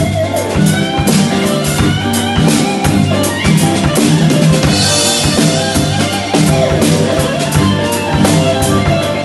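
Yamaha drum kit played live, a busy pattern of kick, snare and cymbal hits, over backing music with sustained bass and other pitched instrument notes.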